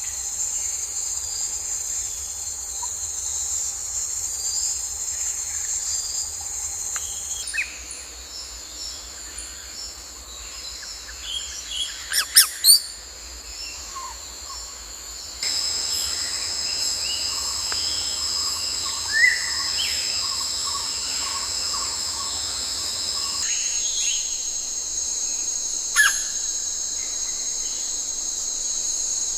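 Steady high-pitched insect chorus that shifts in pitch and level a few times, with scattered short bird calls; the loudest is a quick run of sharp chirps about twelve seconds in.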